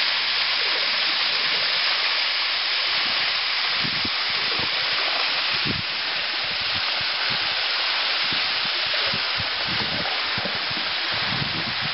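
Steady rushing hiss of a waterfall pouring down beside the canoe, easing a little about halfway through, with dull low thumps coming in from about four seconds on.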